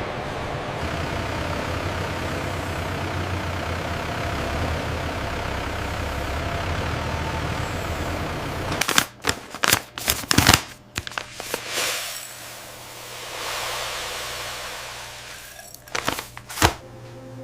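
Steady machinery noise with a low hum, giving way about nine seconds in to a run of sharp clacks and knocks, then a hiss that swells and fades, and a few more sharp knocks near the end.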